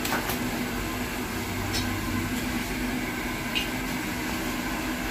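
Steady rushing hum of running bakery equipment, with a few light clicks scattered through it.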